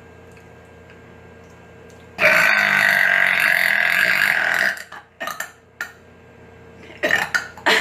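A woman lets out one long, loud burp lasting about two and a half seconds, starting about two seconds in. A few short noises follow near the end.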